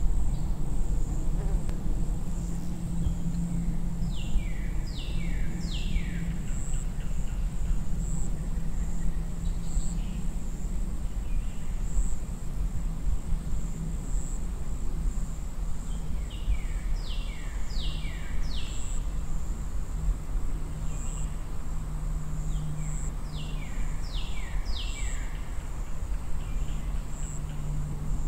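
Outdoor nature ambience: a steady high insect buzz over a low hum. Three times, an animal gives a short run of quick falling calls.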